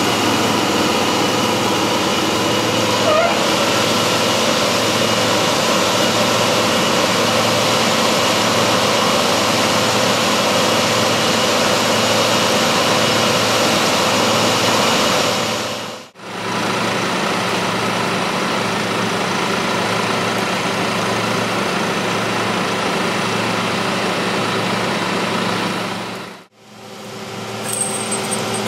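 Farm harvesting machinery running steadily, a loud engine-and-machinery drone with a few steady whining tones. It drops out briefly twice, about halfway through and near the end.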